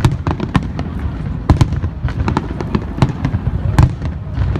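Fireworks going off: a rapid, irregular string of sharp bangs and crackles, several a second, over a continuous low rumble, with the loudest bursts about a second and a half in and near the end.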